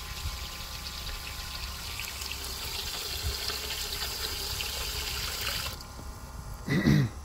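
Water running and splashing into a tub of water and Rydlyme descaling solution around an outboard's lower unit, cutting off suddenly about six seconds in. A short vocal sound follows near the end.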